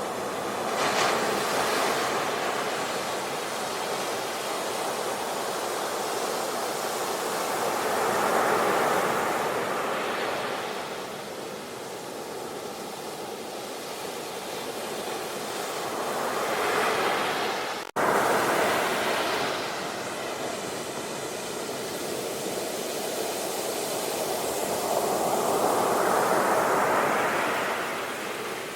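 Ocean waves breaking and washing on a shore, a surge building and falling back about every eight or nine seconds. The sound cuts out for an instant about two-thirds of the way through, then resumes.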